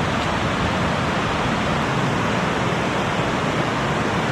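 Water pouring over a small river waterfall, rushing loudly and steadily.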